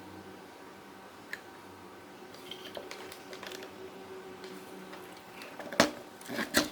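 Small hand tools and parts being handled during soldering work: a sharp click, scattered light taps, then two louder knocks near the end as things are set down.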